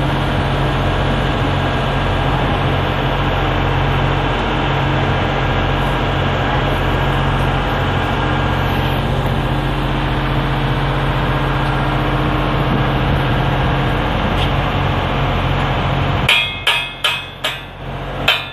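Steady machinery hum with a low drone, then near the end a run of sharp, ringing hammer blows on metal, about three a second.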